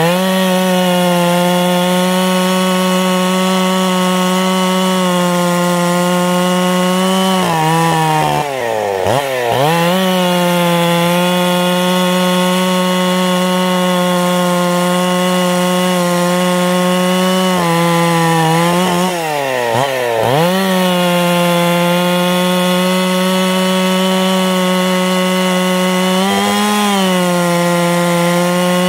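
Ported Husqvarna 272XP two-stroke chainsaw running at high revs under load while cutting through ash. Twice its pitch sags sharply and climbs back. Near the end the revs rise briefly as the load eases, and the saw races instead of four-stroking: it is running too lean, leaned out by heat from a failing oiler.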